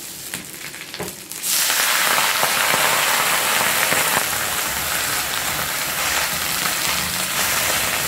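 Hot ghee, with mustard and cumin seeds in it, sizzling loudly as freshly washed, still-wet drumstick (moringa) leaves go into the pan. The hiss starts suddenly about a second and a half in, after a few light clicks, and holds steady.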